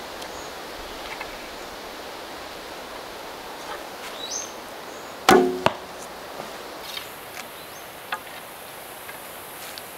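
A wooden Mollegabet self bow of hackberry is shot once about five seconds in. The string release gives one sharp, short, ringing twang, and a smaller knock follows about a third of a second later as the arrow strikes the target.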